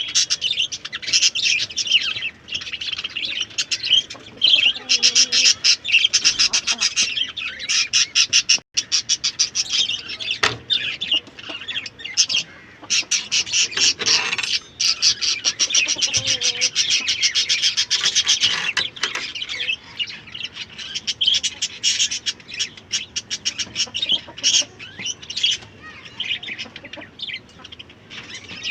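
Many birds chirping and peeping continuously, a dense stream of rapid high notes with occasional squawks.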